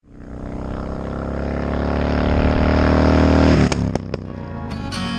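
Kawasaki Vulcan Mean Streak 1600 V-twin motorcycle engine running at a steady pitch, growing louder for about three and a half seconds, then cutting off suddenly. A few sharp clicks follow, and guitar music starts near the end.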